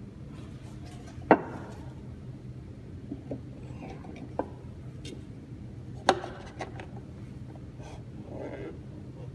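Heavy three-jaw lathe chuck being handled and fitted onto the lathe spindle nose: a few sharp metal clunks, the loudest about a second in and about six seconds in, over a steady low hum.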